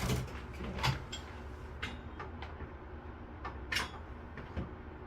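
Irregular clicks and knocks from a chiropractic flexion-distraction table as its moving section is worked, over a low steady hum. The loudest knock comes just before four seconds in.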